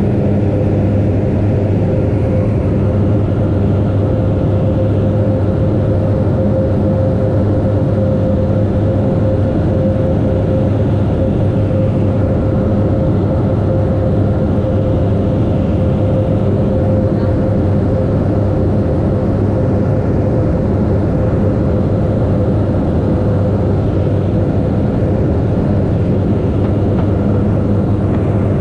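Steady drone of a light propeller plane's engine and propeller, heard from inside the cabin, holding one unchanging pitch throughout.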